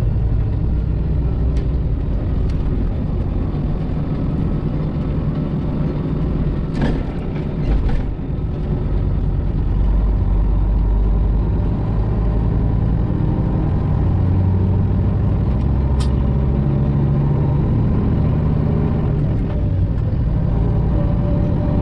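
Detroit Diesel 12.7 engine of a Freightliner Classic XL truck running under way, heard from inside the cab as a steady low drone whose pitch shifts as it pulls. The level briefly dips about eight seconds in, and a few short light clicks come through.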